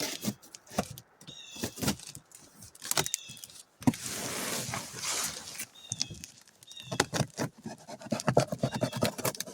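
Cardboard box and packing material being handled and pulled apart: a run of knocks, crinkles and rustles, with a longer scraping, tearing stretch about four seconds in.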